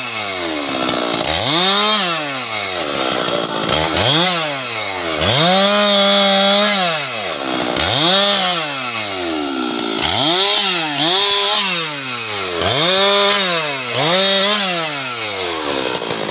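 Husqvarna 390XP two-stroke chainsaw revved over and over, about eight times. Each time the engine climbs quickly to full speed, holds there briefly, once for about two seconds, then falls back toward idle.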